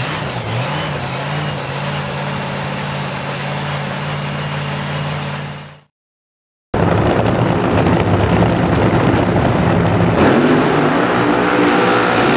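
Supercharged nitro funny car engine settling into a steady idle just after starting. After a sudden cut to silence of about a second, a nitro funny car engine runs much louder, revving in a burnout near the end.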